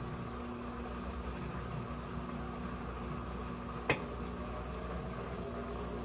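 Electrolux LAI17 17 kg top-load washing machine in its spin cycle: a steady motor hum with a low rumble as the drum spins. A single sharp click comes about four seconds in.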